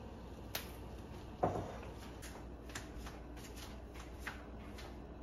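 A glass clip-top jar is set down on the kitchen counter with one solid knock and a short ring about a second and a half in, among light clicks and taps of handling.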